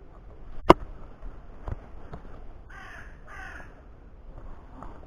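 A crow cawing twice in quick succession, about three seconds in. A sharp click comes near the start, with a softer one a second later.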